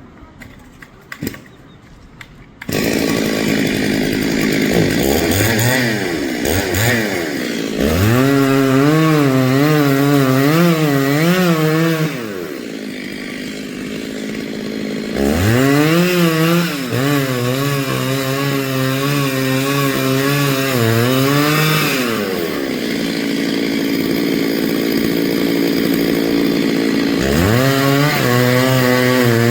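Two-stroke chainsaw starting up about three seconds in, then cutting a tree. It is revved up to high speed in three long stretches, its pitch wavering as it works, and drops back to a lower idle between them.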